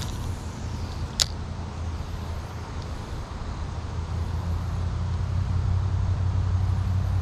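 Low, steady engine rumble, growing louder in the second half, with one sharp click about a second in.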